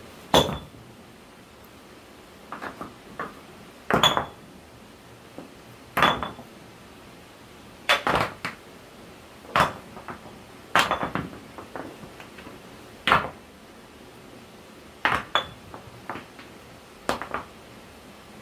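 Stones knocking against stones as rocks are set down and stacked by hand: about a dozen sharp clacks, every second or two, some in quick pairs, with a short echo from the rock shelter.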